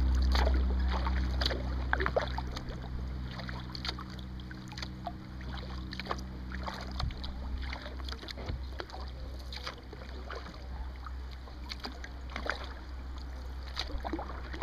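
Kayak paddle strokes: the blades dipping and dripping water in many small, irregular splashes and trickles. A low rumble is loudest in the first couple of seconds, then eases.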